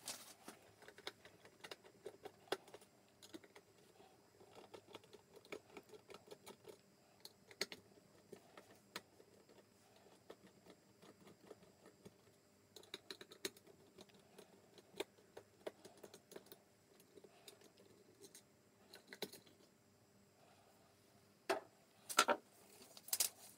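Small clicks and ticks of a screwdriver turning out the small screws on a plastic enclosure lid, with the screws and spacers being handled. A few louder sharp clicks come near the end as the lid comes free.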